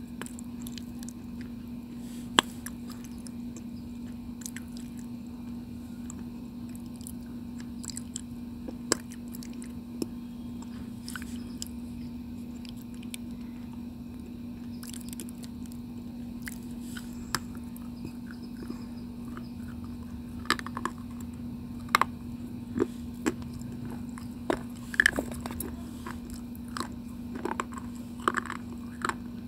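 Close-mic chewing and crunching of a piece of white slate stone: scattered sharp crunches and bites, coming much more often in the last third, over a steady low hum.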